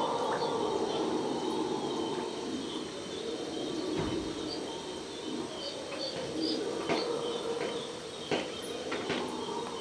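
Rainforest dawn chorus: a steady low drone of distant red howler monkeys calling, under scattered bird chirps and calls and a steady high insect buzz. The sharpest bird calls come in the second half.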